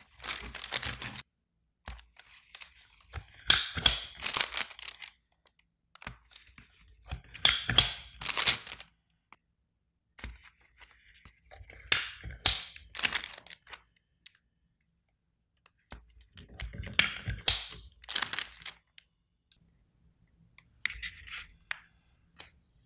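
Cookie press being worked over a metal baking tray: short bursts of clicking as the lever is squeezed, with knocks as the press is set down on the tray. Six bursts come about every four to five seconds.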